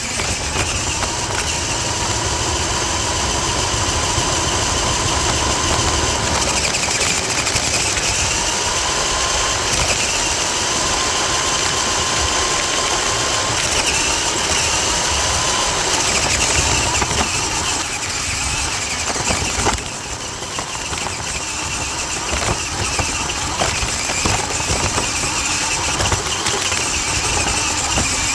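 Toy RC truck's small electric motor and gears whining as it drives, over a constant rattle of tyres on the road surface; the whine's pitch rises and falls a little as the speed changes.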